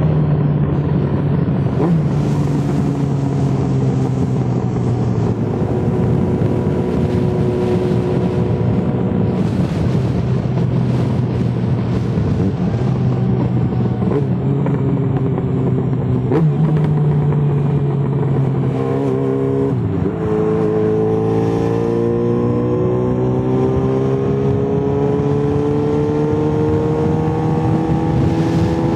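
Yamaha XJ6N's inline-four engine running through an Arrow full exhaust, its pitch holding, dropping off about two-thirds of the way in, then climbing slowly to the end. A few sharp exhaust pops cut through now and then.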